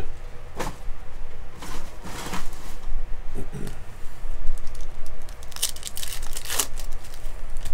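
Wrapper of a pack of baseball trading cards being torn open and crinkled by hand, in several short rustling bursts, the longest near the end.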